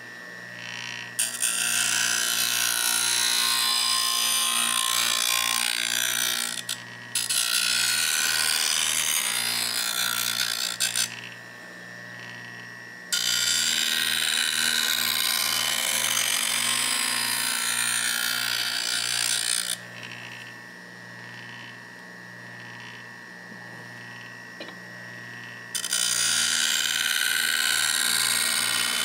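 Bench grinder motor humming steadily while the steel edge of a rusty drawknife is pressed to the wheel, grinding its bevel. There are four long grinding passes of several seconds each, heard as a harsh hiss, with pauses between where only the motor hum remains.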